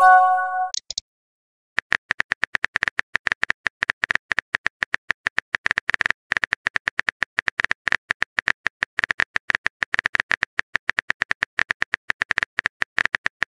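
A rapid run of phone-keyboard typing clicks, the typing sound effect of a texting-story app, many taps a second with a short pause about a second in. At the very start, a brief chime of a few stepped tones marks a message arriving.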